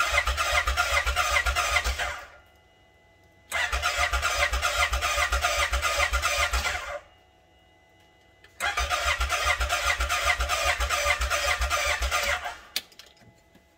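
Starter cranking a four-stroke engine through a compression tester, in three bursts with short pauses between, each with a fast even chugging of compression strokes. This is the wet stage of a compression test, with oil down the cylinder and the throttle open; the reading it gives shows the owner the piston rings are worn.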